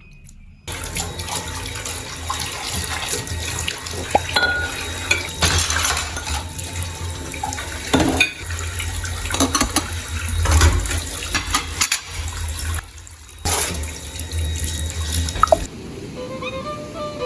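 Water running from a tap into a sink, a steady splashing rush with a few knocks and clicks mixed in. It starts about a second in and briefly drops away once before running on.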